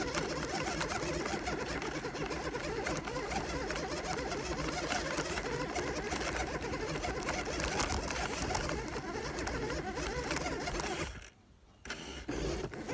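RC car's electric motor and gears whirring steadily as it drives. The whirr cuts out about eleven seconds in, comes back in a short burst, then cuts out again.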